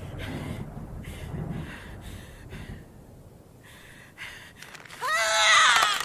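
Designed female werewolf transformation sound effect: low, breathy growls and gasps for the first few seconds, then about five seconds in a loud creature shriek that rises and then falls in pitch, the loudest part.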